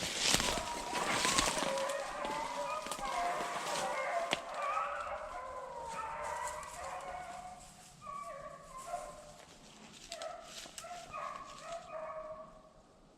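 A pack of rabbit-hunting beagles baying together while running a rabbit, many overlapping voices. There is loud crackling noise over the first couple of seconds, and the chorus thins and fades near the end.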